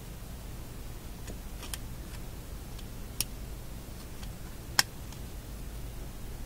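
Small sharp clicks of a magnet and metal parts knocking together while the Philco shadow meter's internal magnet is stroked to re-magnetize it. There are three clear clicks about a second and a half apart, the last the loudest, over a steady low hum.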